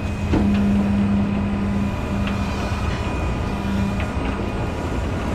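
Rollback tow truck running with its hydraulic bed in use, giving a steady engine drone with a thin steady whine above it and a couple of light clicks.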